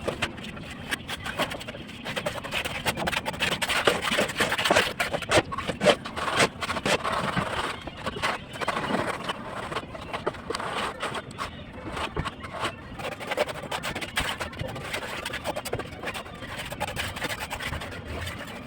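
Construction-site work: scraping with many short, irregular knocks and clicks.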